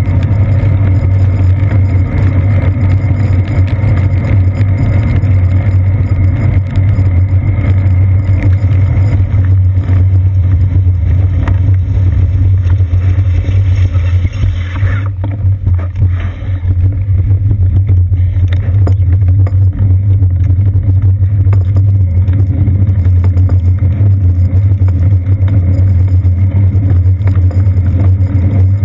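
Steady, muffled low rumble of road vibration and wind from a bicycle riding over wet pavement, picked up through a seat-post-mounted GoPro's sealed housing. The higher hiss thins out briefly about halfway through.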